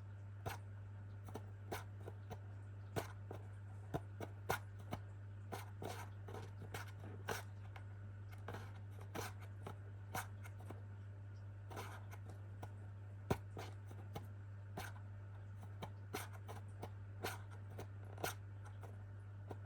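A pet making its usual wake-up noise: irregular sharp clicks and scratches, one or two a second and unevenly spaced, over a steady low hum.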